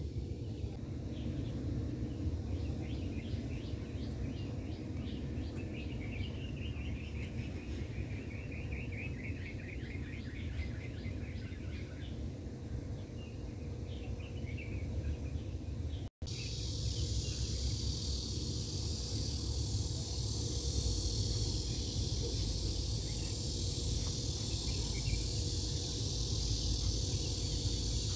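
Outdoor ambience of insects chirping in rapid trills over a steady low rumble. After a brief dropout about sixteen seconds in, a steady high hiss takes over.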